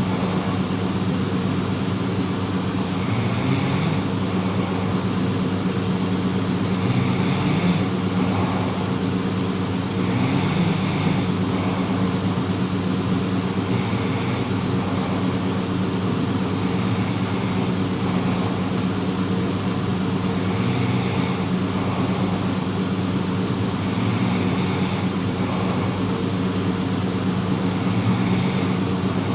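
A person snoring in a slow, even rhythm, one snore about every three and a half seconds, over a steady low hum.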